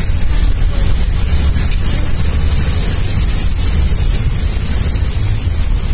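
Steady low rumble of wind buffeting the microphone, with a thin, steady high-pitched whine running over it.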